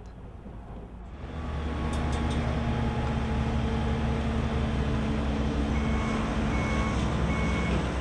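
Heavy diesel construction equipment running steadily, the engine rumble building up about a second in. From about six seconds in, a vehicle's reversing alarm beeps at an even pace.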